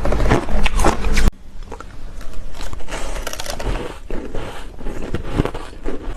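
Ice being bitten and crunched close to the microphone: sharp cracks and crackly crunches. It is loud and dense at first, then drops off abruptly about a second in to quieter crunching.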